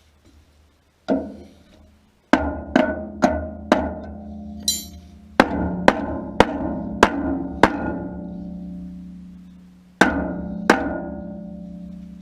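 Hammer blows on the steel of a feeder bucket being knocked back into shape, about a dozen strikes in uneven groups. Each blow leaves the metal ringing on.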